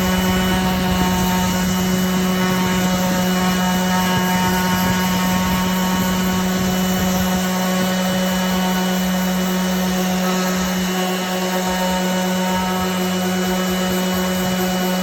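Metabo HPT cordless random orbital sander running steadily on a wooden board: a constant motor hum that dips slightly about eleven seconds in.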